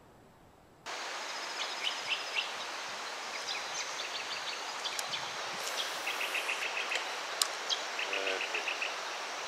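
Steady rush of a river flowing over rocks, with birds chirping over it in short, quick runs of high notes. It comes in suddenly about a second in, after near silence.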